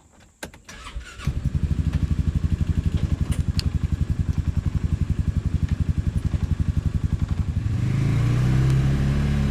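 Polaris Ranger 570 UTV's single-cylinder engine starting after a few clicks about a second in, then idling with an even, rapid pulse. Near the end the engine revs up and holds a higher, steadier note as the machine pulls away.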